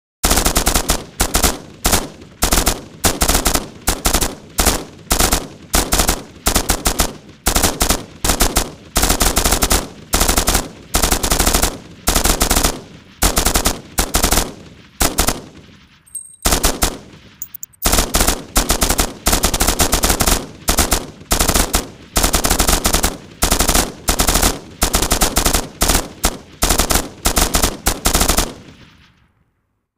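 M249 light machine gun firing full auto in short bursts of rapid shots, about one burst a second, each trailing off in echo. There is a brief break a little past halfway, and the firing fades out near the end.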